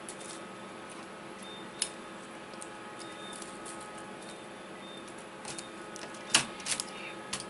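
Light clicks and taps of a replacement laptop keyboard being handled and set into the laptop's metal-backed top section. There is a sharp click a couple of seconds in and the loudest clicks about six seconds in, over a steady faint hum.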